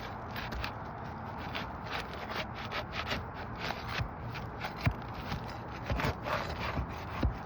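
Scraping and clicking as an asphalt roof shingle is pried loose and its roofing nails are worked out, with a few sharper knocks.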